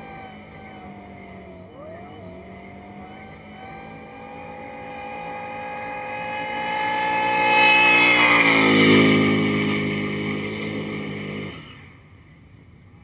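Burnout car's engine held at high revs with its tyres spinning, steady at first with a brief wobble in pitch about two seconds in. It grows much louder as the car comes close, loudest about eight to nine seconds in with the pitch falling, then drops away sharply near the end.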